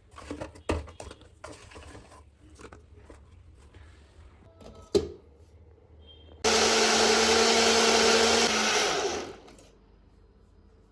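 Light knocks and clicks with one sharp click, then an electric blender starts and runs steadily for about two and a half seconds, blending a smoothie of frozen fruit, oats and soya milk, before winding down.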